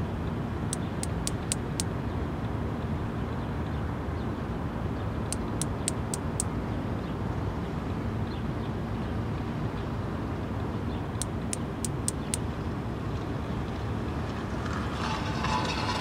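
Male Platypedia putnami cicada wing-clicking, its mating call: three quick runs of about five sharp clicks each, spaced several seconds apart, over a steady low background rumble. A louder, unidentified sound comes in near the end.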